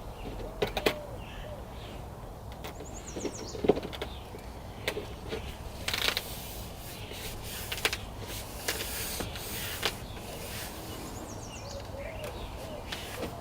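Scattered knocks and clicks from hand work, with a few short scraping bursts and birds chirping in the background.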